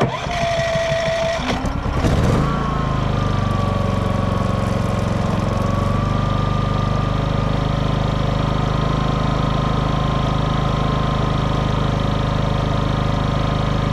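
Predator 5000 inverter generator started with its electric starter: about two seconds of cranking, then the engine catches and runs steadily on propane on its first startup, its speed wavering briefly before settling.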